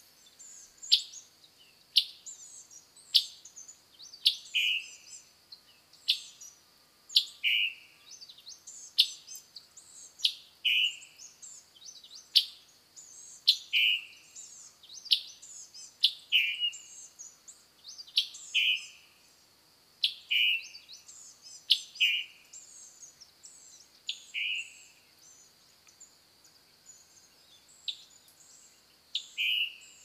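Male scarlet tanager repeatedly giving its chip-burr call: a sharp chip followed by a short, burry note, about every one to two seconds, with a pause of a few seconds near the end.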